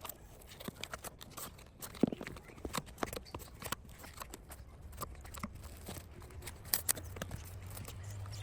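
Irregular light taps and clicks of small craft parts being handled and put together, one sharper knock about two seconds in, over a low steady hum that grows slightly louder near the end.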